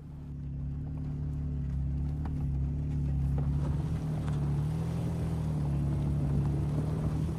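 Off-road vehicle engine running at a low, steady speed as it crawls along a rocky dirt trail. The hum swells slightly over the first second, then wavers a little.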